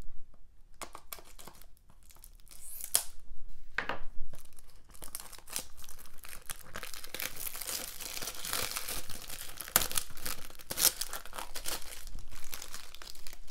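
Plastic shrink wrap being torn and peeled off a Blu-ray case: continuous crinkling and crackling with many sharp snaps, sparse at first and thicker from about five seconds in.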